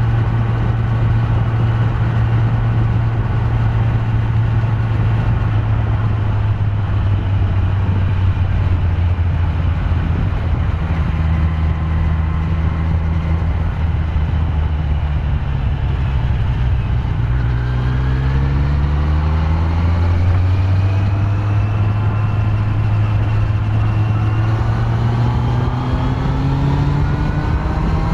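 Kawasaki Z900's inline-four engine on its stock exhaust, riding along. The engine note holds steady, drops lower mid-way, then climbs in pitch twice as the bike accelerates.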